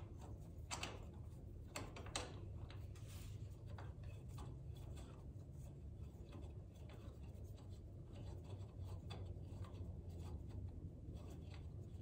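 Faint metal clicks and light scraping of a small hex key turning a bolt into a motorcycle's footpeg hanger, a few sharper clicks in the first couple of seconds, over a steady low hum.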